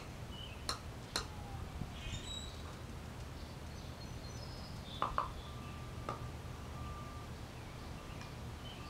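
A few light clicks and knocks as a small metal can is lifted off a paving brick and set back down, over a steady low outdoor hum with faint bird chirps.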